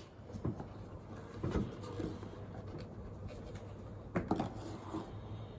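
Handling noise from a wooden lute being moved and turned close by: a few soft wooden knocks and rubs, a pair of sharper ones about four seconds in, over a steady low hum.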